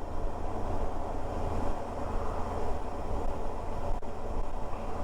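Suzuki V-Strom 650 V-twin engine running steadily with wind noise while riding at a constant speed, heard from on board the motorcycle.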